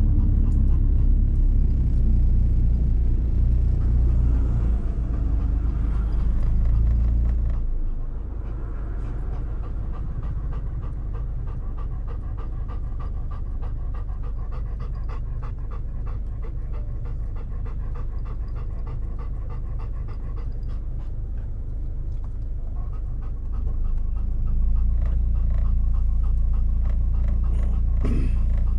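A dog panting in a quick, even rhythm inside a car, over the low rumble of the car on the road. The rumble drops about eight seconds in and rises again near the end, as the car slows and moves off.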